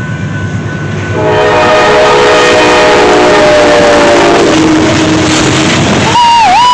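Norfolk Southern freight train's diesel locomotives passing close at speed, sounding a multi-note air horn chord from about a second in for some three seconds. The chord slides slightly lower as the lead engine goes by, then gives way to a single lower note, over a steady engine and rail rumble. Near the end comes a short whoop that rises, dips and falls.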